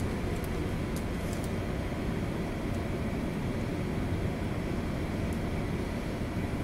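Steady low rumble of a 1000-foot Great Lakes freighter's engines and machinery heard from up in the wheelhouse, with a few faint ticks.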